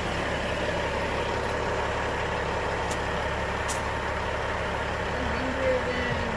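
A large engine idling steadily, with two faint sharp ticks near the middle.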